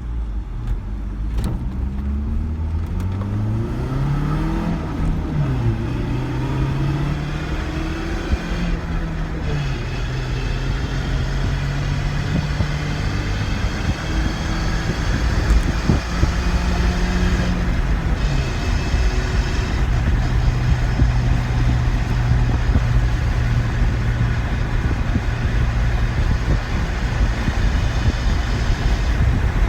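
Ford Ranger pickup accelerating hard, heard from inside the cab. The engine pitch climbs and drops back at each of several upshifts, then holds steady at highway cruise. Road and wind noise grow louder through the missing rear window.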